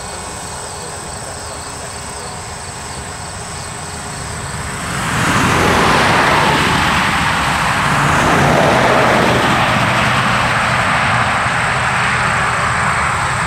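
A motor vehicle passing by on a road: its tyre and engine noise swells about five seconds in, peaks, then slowly fades.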